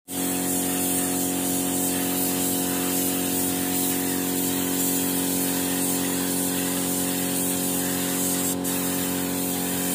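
Compressed-air gravity-feed spray gun spraying paint in a steady, unbroken hiss, over a steady low hum.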